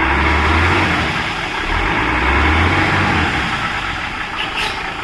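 Heavy diesel engine running, with two swells of deep rumble in the first three seconds or so before it eases.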